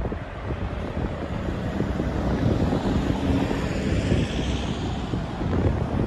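Wind buffeting the microphone in a steady low rumble, with a rushing hiss that swells and fades about halfway through.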